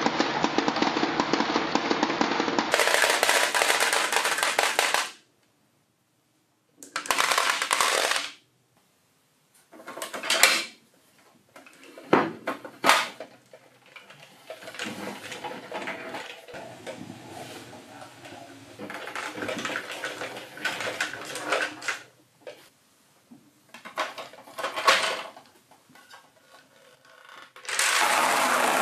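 Balls rolling and rattling down a wavy wooden track and clacking onto a heap of glass marbles in a plastic toy dump truck's bed. This comes in several separate runs, with sharp clicks and short pauses between them. Near the end a dense, steady rattle sets in as the tipping bed pours marbles out onto a flat surface.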